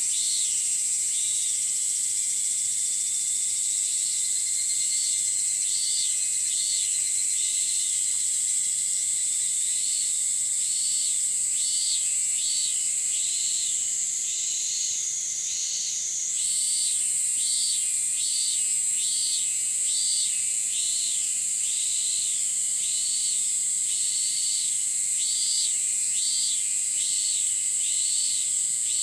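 Summer morning chorus of cicadas and other insects: a steady high-pitched drone with a pulsing call repeated over and over, about one note every two-thirds of a second. The drone drops lower in pitch for a couple of seconds around the middle, then jumps back up.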